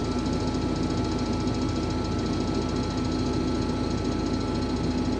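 Case IH combine running steadily while cutting wheat: an even engine and threshing-machinery hum with a constant higher whine over it.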